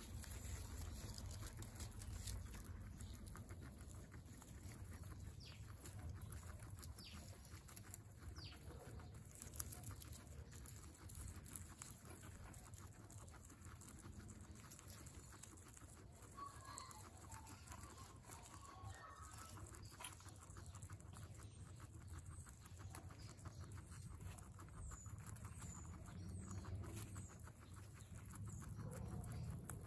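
Guinea pig chewing hay: a fast, continuous run of small, faint crunching clicks.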